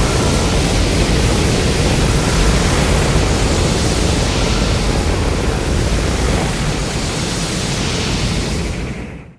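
Godzilla atomic breath sound effect, layered from the MonsterVerse and Godzilla 2000 breath sounds: a loud, steady rushing blast that fades out over the last second or so.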